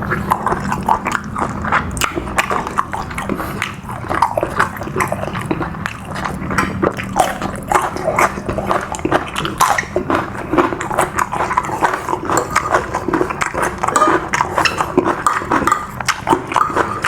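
Close-up eating noises: chewing and mouth smacking, with many short irregular clicks and crunches.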